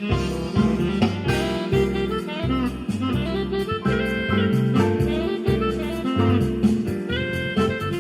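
A Yamaha PSR-620 arranger keyboard playing one of its built-in demo songs: a jazz piece with a saxophone voice leading over a walking bass line and drums.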